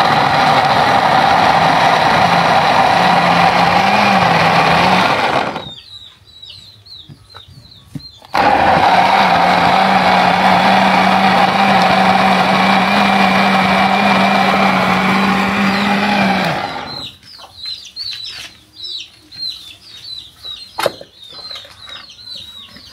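Moulinex countertop blender running, blending chopped coconut with water into a milky slurry. It runs for about five seconds, stops, then starts again about three seconds later and runs for about eight seconds more before cutting off.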